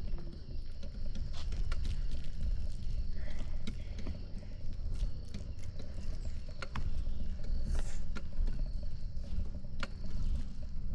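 Low, gusting wind rumble on the microphone of a camera moving alongside a mountain bike, with scattered sharp clicks and rattles from the bike.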